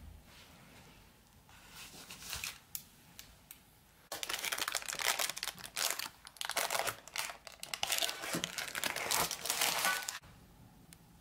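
Parchment baking paper crinkling and tearing as it is handled and peeled away from a baked cake, a few light rustles first, then dense, loud rustling from about four seconds in that stops abruptly near the end.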